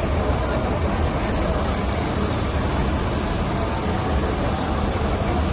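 Steady dense background din of a machinery exhibition hall: a heavy low hum under a hiss that brightens about a second in.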